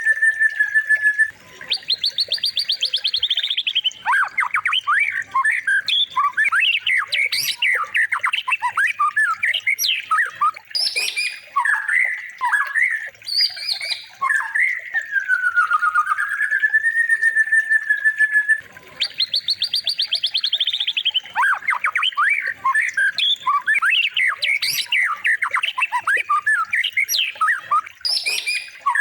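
Songbird song played as a looped masteran track for training white-rumped shamas. A slow whistle glides down and back up, then a fast high trill, then a long run of varied quick chirps and whistled notes. The whole sequence repeats about every 17 seconds.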